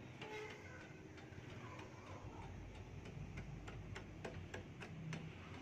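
Light, regular chops of a machete blade on dry, weathered sassafras driftwood, about two or three strokes a second. It is chipping off the weathered surface to expose the burl underneath.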